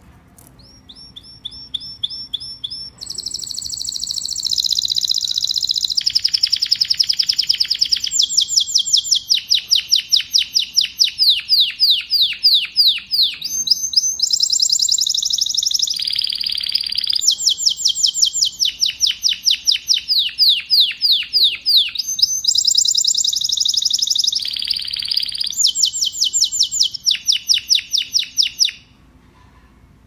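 Domestic canary singing a long, loud song of rapid trills. Each phrase is a fast run of one repeated high note, and the song switches to a new trill every second or two before stopping abruptly near the end.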